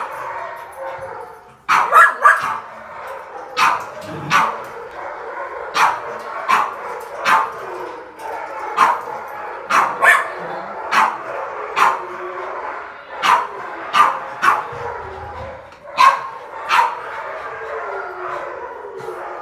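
Dog barking repeatedly in sharp single barks, about one a second and sometimes two or three in quick succession, over a steady background of other dog noise.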